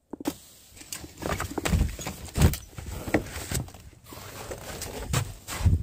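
Footsteps on a thin layer of snow at a walking pace, with wind and handling noise on the microphone.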